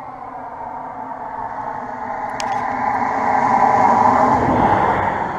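A motor vehicle passing on the road: its engine drone grows steadily louder, peaks with a rush of tyre noise about four to five seconds in, then begins to fade.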